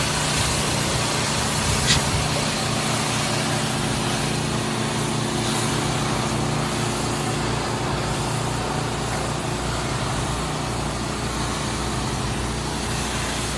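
Pressure washer running steadily: an engine drone under the hiss of the high-pressure spray, with a brief sharp click about two seconds in.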